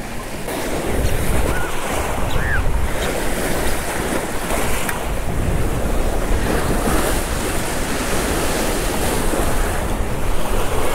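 Choppy, wind-driven lake waves splashing against the shore, with wind buffeting the microphone in a steady low rumble.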